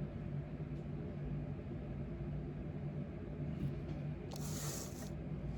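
A steady low hum, with a brief hissing rustle about four and a half seconds in.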